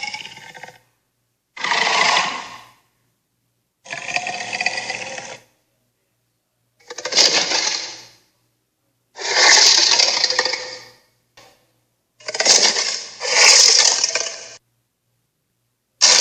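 Cartoon hydra monster sound effects: a series of separate creature calls, each one to two seconds long, with silence between them.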